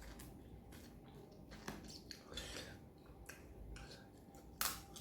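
Faint eating sounds from a person eating chicken curry by hand: scattered small clicks and soft chewing noises, with a sharper click near the end.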